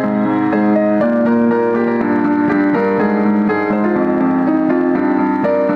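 Background piano music: a melodic keyboard line with a steady run of notes.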